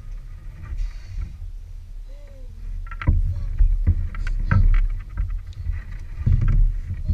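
Dull thumps and knocks against the plastic hull of a Native Ultimate 12 kayak as a big snook is handled in the angler's lap. A handful of sharp knocks and heavier thumps come in the second half.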